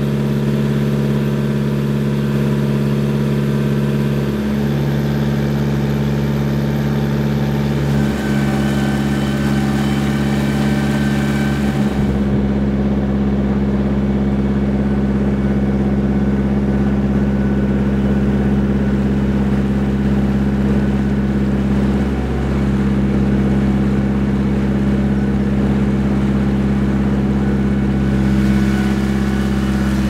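Boat's outboard motor running steadily at cruising speed, a constant low engine hum.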